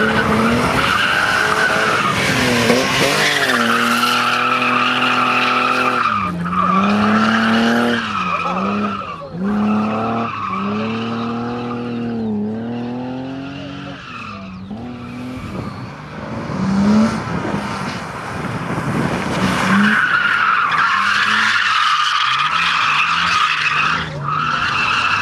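BMW E30 3 Series sliding through a cone course: the tyres squeal loudly at the start and again from about twenty seconds in, and in between the engine revs rise and fall over and over as the car is thrown from side to side.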